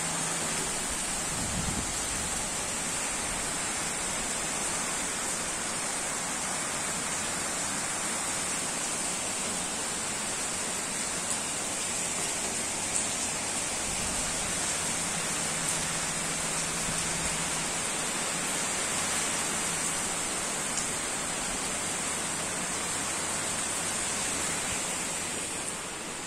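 Steady heavy typhoon rain pouring down in a hiss, with no let-up; it drops a little near the end.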